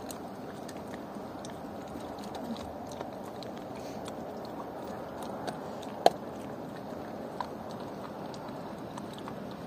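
Dog chewing and crunching bones, with scattered short cracks and one loud sharp crack about six seconds in.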